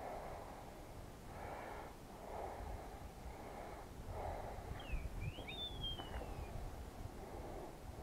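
Heavy breathing close to the microphone, about one breath a second. A short, thin bird call of a few whistled gliding notes sounds about five seconds in.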